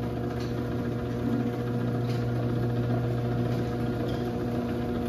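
Chamberlain 1/2 HP chain-drive garage door opener running steadily with a hum as it lowers a sectional garage door, driven while the button is held to set the down-travel limit.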